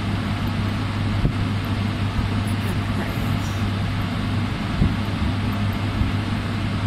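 Steady low droning hum with an even rushing noise over it, unchanging throughout.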